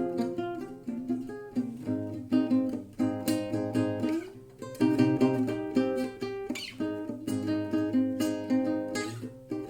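Acoustic guitar playing a plucked and strummed chord pattern, notes ringing and fading between strokes.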